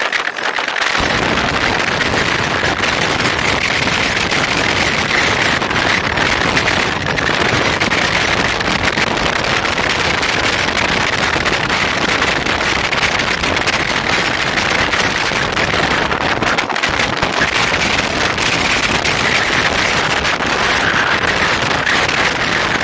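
Steady, loud wind and rolling road noise on the microphone of a moving personal electric vehicle.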